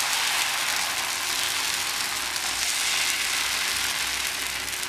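Tomato dosa batter sizzling on a hot dosa griddle as a ladle spreads it in a spiral: a steady hiss that slowly grows quieter.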